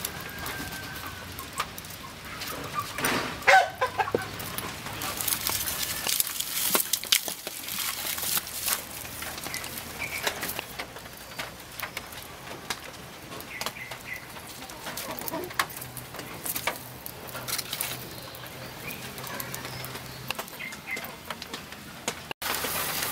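Wood fire crackling with many small pops and clicks, while a chicken clucks now and then; the loudest call comes about three and a half seconds in.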